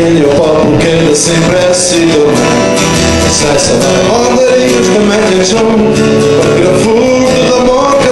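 Live acoustic folk song: a man sings a gliding melody over his own steadily strummed acoustic guitar.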